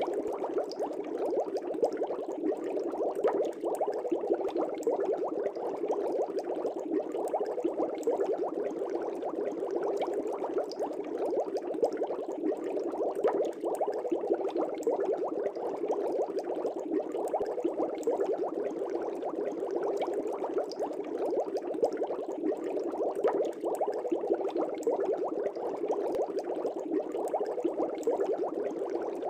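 Air bubbles in a fish tank, a steady dense bubbling full of small rapid pops that never lets up.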